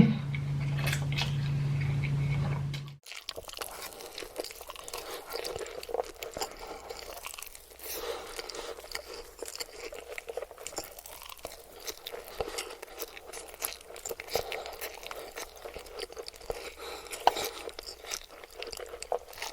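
Close-miked chewing of spicy noodles, a dense run of small wet clicks and crackles. A steady low hum runs under the first three seconds and stops abruptly.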